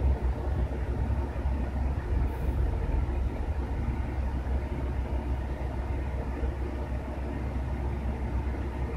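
A steady, unchanging low mechanical rumble, like machinery or an engine running, with a noisy hiss over it.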